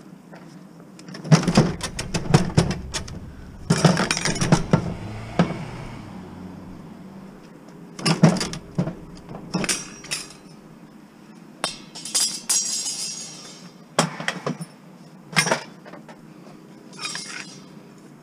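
A thin metal wire stand with caster wheels and a white plastic appliance housing being handled and pulled apart on pavement: bursts of clinking and rattling, separate knocks, and a brief scrape about halfway through.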